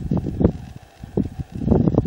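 Wind buffeting the microphone outdoors: irregular low rumbling gusts that ease off briefly about a second in, then pick up again.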